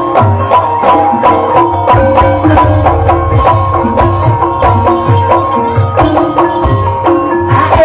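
Traditional Javanese gamelan music accompanying an ebeg hobby-horse dance. Hand drums and struck tuned percussion play a steady, driving rhythm.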